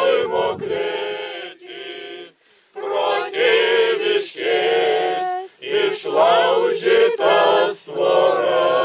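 Mixed church choir of men and women singing together in phrases, with short breaks for breath between them.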